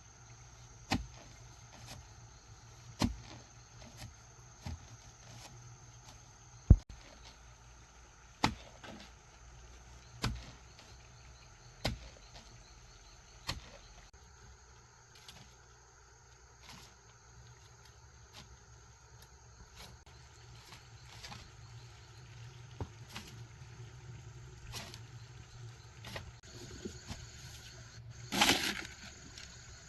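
A series of sharp single knocks, one every one and a half to two seconds, over a faint steady background, with a longer, louder rasping noise near the end.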